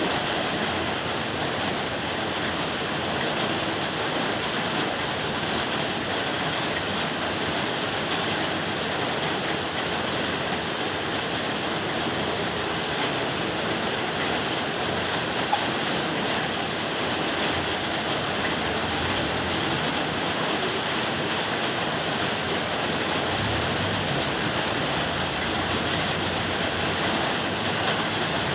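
Steady heavy rain, an even, unbroken hiss with no change in strength.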